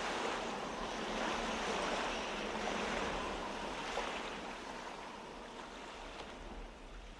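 Ocean waves washing on a shore, a steady surf wash that slowly fades out.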